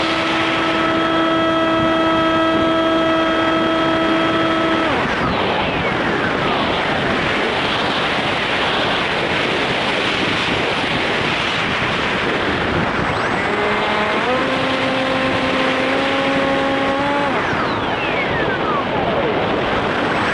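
Onboard sound of a foam RC plane's electric motor and propeller. A steady whine cuts out about a quarter of the way in, leaving wind rushing over the airframe as the plane glides. It comes back at a lower pitch about two-thirds of the way through, steps up, and cuts out again shortly before the end. Two brief falling whines also pass by.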